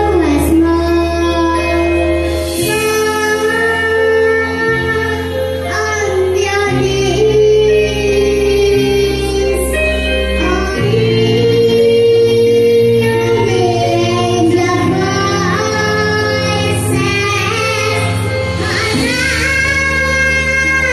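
A young girl singing solo into a microphone over accompaniment music, holding long notes over a bass line that changes every two to three seconds.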